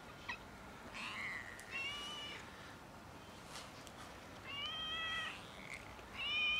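Stray kittens meowing: four high-pitched meows, two short ones in the first half and two longer ones near the end.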